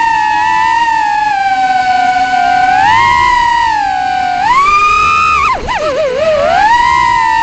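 3-inch FPV drone's brushless motors and propellers whining in flight, the pitch rising and falling with throttle. A little past halfway the pitch drops sharply and wavers, then climbs back to a steady whine.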